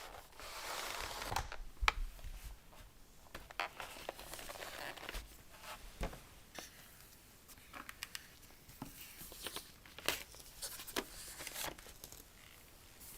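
Handling of packaging: plastic or paper rustling and tearing, with scattered sharp clicks and taps.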